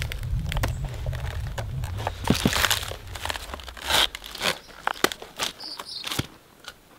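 Fibrous coconut palm trunk being pried and torn apart by hand: strips of fibre tearing and rustling, with a run of sharp cracks and snaps, the loudest about two and a half seconds and four seconds in.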